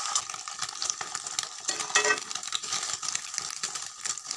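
Beaten egg sizzling as it fries in hot oil in a metal kadai, with a metal slotted spatula scraping and stirring it against the pan. A sharper clink of spatula on pan comes about two seconds in.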